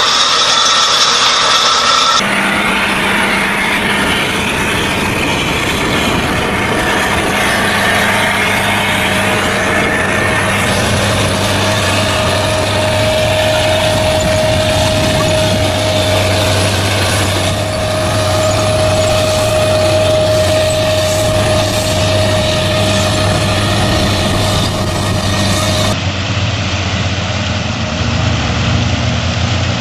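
Engines of heavy machinery running steadily with a constant hum, the sound changing abruptly about two seconds in and again near the end as one clip cuts to the next.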